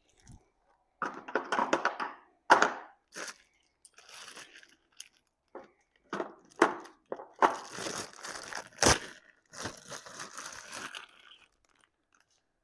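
Crinkling and tearing of packaging with a few sharp knocks, as new 13-ball-bearing nylon garage door rollers are handled and unpacked.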